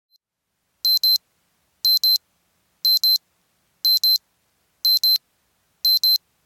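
Digital alarm-clock beeping from a countdown timer: high-pitched double beeps, one pair a second, starting about a second in. It signals that the countdown has run out.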